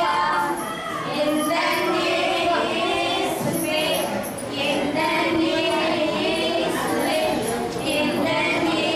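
Young female voices singing a song together as a group.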